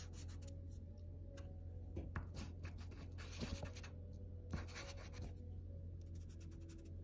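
Pastel stick scratching across paper in several short bursts of quick strokes, laying darker colour onto painted bricks, over a steady low hum.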